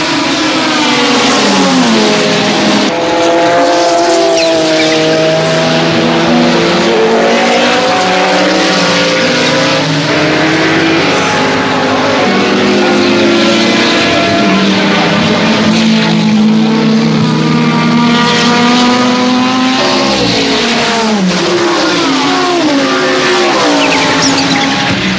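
Several race car engines at full throttle, their pitches climbing and dropping over one another as the cars change gear and pass.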